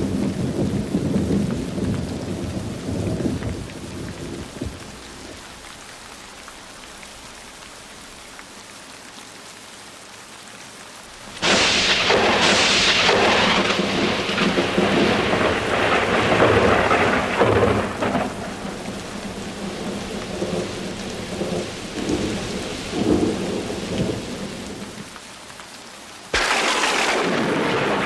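Heavy rain falling steadily through a thunderstorm. Thunder rumbles and fades in the first few seconds, leaving the rain hiss alone. A sharp thunderclap about eleven seconds in rolls into a long rumble that slowly dies away, and a second sudden clap breaks near the end.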